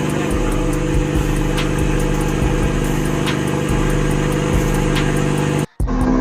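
Car engine idling steadily, with a sudden short break near the end.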